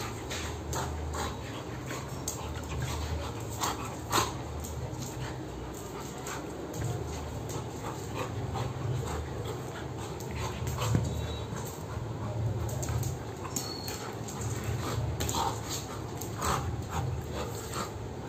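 A Labrador retriever and a beagle play-fighting, with panting, mouthing and scuffling and many short clicks and knocks of jaws and claws on a tiled floor, a louder one about four seconds in and another near eleven.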